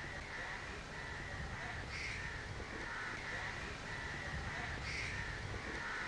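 Crows cawing a couple of times, about two and five seconds in, over a steady outdoor background hiss.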